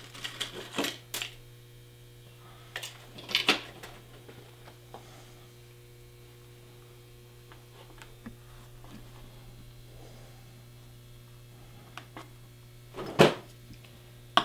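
Clatter of small metal tools and pins being handled in a metal tool cart: a few scattered clicks and knocks, then a quiet stretch over a steady hum, and one sharper knock near the end as a tack hammer is picked up.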